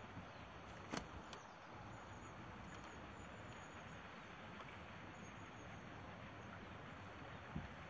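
Faint, steady outdoor background hiss, broken by a sharp click about a second in, a softer one just after it, and a duller knock near the end.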